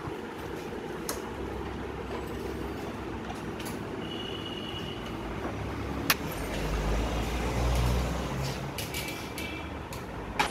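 Workshop ambience with road traffic: a steady low rumble that swells as a vehicle passes about two-thirds of the way in, and a few sharp metal clicks from tools as a motorcycle fuel tank is unbolted.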